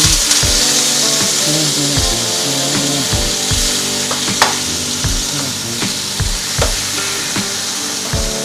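Pork sizzling as it fries in hot oil in a pan, with a few sharp clicks of a utensil stirring it. Music with a repeating bass plays underneath.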